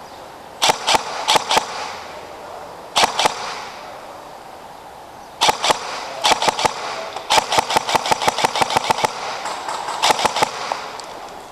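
Airsoft guns firing in short bursts and single shots, sharp cracks that echo off hard walls. The firing comes in groups, about a second in, around three seconds in, then a longer rapid run of roughly seven shots a second in the middle, and a last short burst near the end.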